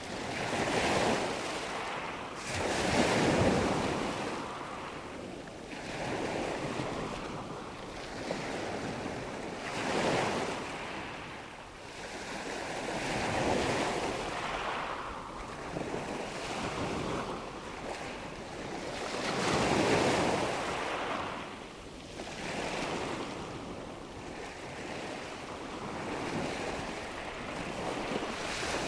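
Ocean waves breaking and washing in, the noise of the surf swelling and falling in irregular surges every few seconds.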